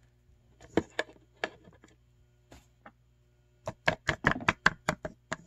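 Hard plastic Littlest Pet Shop toy figure tapped against a tabletop, as when a figure is hopped or walked along. A few scattered clicks come first, then a quick run of about a dozen taps in the last second and a half.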